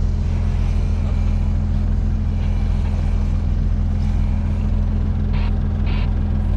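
Lifted Jeep Cherokee XJ's engine running steadily at low revs, close by, with no change in pitch. Two short higher-pitched sounds break in about five and a half and six seconds in.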